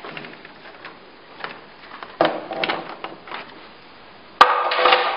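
Hard plastic knocks and clicks from the hinged touchscreen panel of an E-light + RF MED-230 IPL/RF machine as it is tilted and pressed down on its hinge. There is a cluster of light knocks in the middle, then one sharp knock about four seconds in, the loudest sound, followed by a short rattle.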